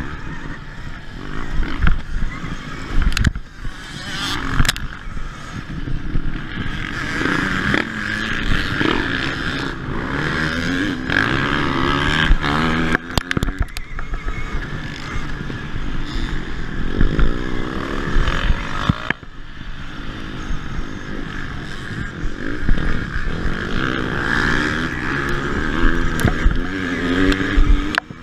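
Onboard sound of a KTM Freeride-E electric dirt bike racing over a rough dirt track: steady wind rush and noise, frequent knocks and rattles from bumps, and the engines of nearby petrol dirt bikes revving up and down.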